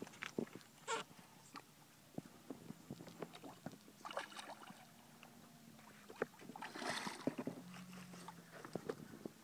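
Hooked redfish splashing at the water's surface as it is reeled in: two short splashes, about four and seven seconds in, the second louder. Scattered light clicks run throughout.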